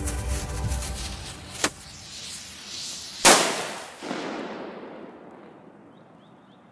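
A firecracker's fuse hissing, a sharp pop about a second and a half in, then one loud bang a little after three seconds that dies away over a couple of seconds.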